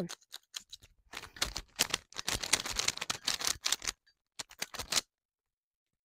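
A plastic 3x3 puzzle cube being turned quickly by hand, its layers clicking and clacking in rapid runs. The sound cuts off suddenly about five seconds in.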